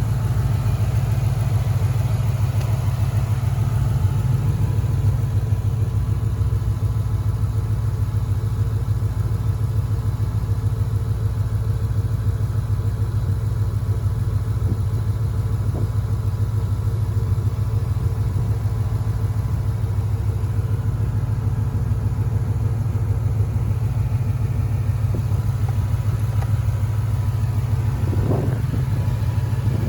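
2013 Ford Mustang GT's 5.0 Coyote V8 running steadily at idle with an even, rapid pulsing, the noise the owner takes for rod knock.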